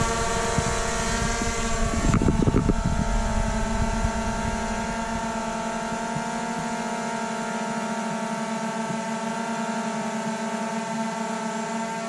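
DJI Air 2S quadcopter hovering: its four motors and propellers make a steady hum of several even tones at once, with a fairly low tone. A low rumble comes in under the hum during the first few seconds and dies away by about five seconds in.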